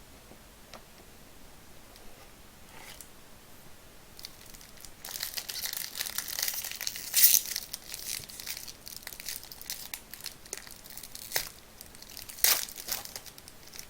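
A foil trading-card pack wrapper being torn open and crinkled, in a run of crackling from about five seconds in and a few sharper crinkles near the end.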